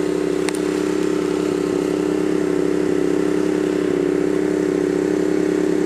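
Honda EM400 portable generator's small engine running steadily, with its DC charging load disconnected. A faint click about half a second in.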